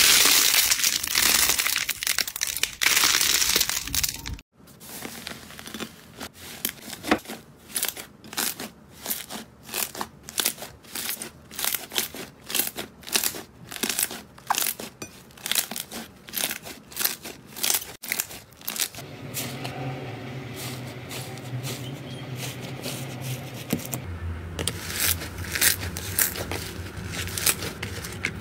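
Hands squeezing and kneading slime and squishy toys in turn. First comes a dense crinkly rubbing as a squishy ball toy is squeezed. Then a long run of sharp wet clicks and pops, two or three a second, as green slime is kneaded in a bowl, and near the end fluffy rainbow slime is pressed and worked, over a low steady hum.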